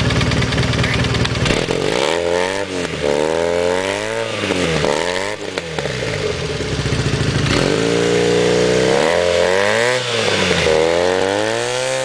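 Single-cylinder motorcycle engine breathing through a Roncar aftermarket exhaust, revved up and down several times between stretches of idle.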